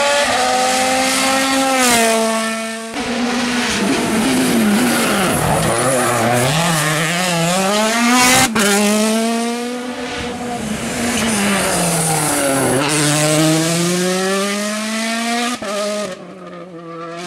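Hyundai i20 WRC rally car's turbocharged four-cylinder engine at high revs, driven hard. The revs drop sharply under braking and downshifts, then climb again under full acceleration, rising and falling several times.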